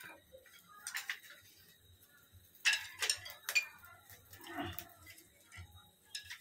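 A few sharp clicks and clinks of small hard objects knocking, about a second in and three more between two and a half and three and a half seconds in, with soft rustling between.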